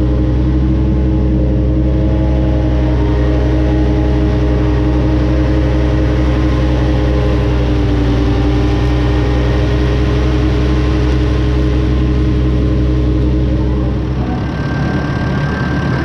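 A front-mounted Krone EasyCut F 320 disc mower cutting grass, heard up close, with the Claas Arion 530 tractor driving it: a steady mechanical drone from the spinning discs and driveline, with the engine beneath. About fourteen seconds in the sound shifts to a lighter tractor drone with a thin, steady high whine.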